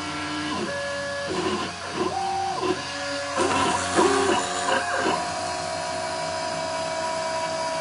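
Mini CNC machine's stepper motors whining at shifting pitches as the axes move while it mills a circuit board, over a steady hiss. From about five seconds in, one tone holds steady during a longer move.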